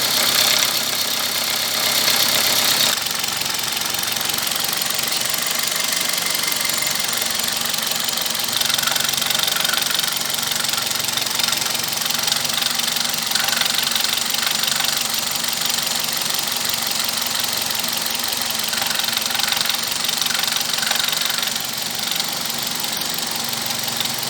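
Toyota Corolla VVT-i engine idling with a steady, rapid ticking knock from the top of the engine. The engine oil is so low it does not show on the dipstick, so oil is not reaching the valves, the VVT-i pulley and the camshafts.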